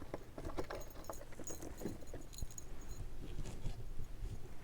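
Small metal costume-jewelry brooches clicking and jingling against each other as they are picked up and handled, in a run of light clicks and rustles.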